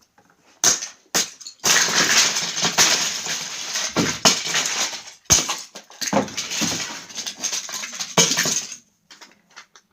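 Plastic Lego bricks being smashed apart: a few sharp knocks, then a long stretch of clattering, rattling pieces with several hard hits, stopping shortly before the end.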